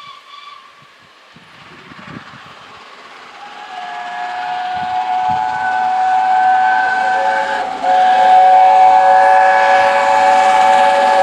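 Steam locomotive's chime whistle sounding one long chord of several notes, growing louder as the train approaches. It breaks off for a moment about eight seconds in, then resumes louder and dips slightly in pitch at the end.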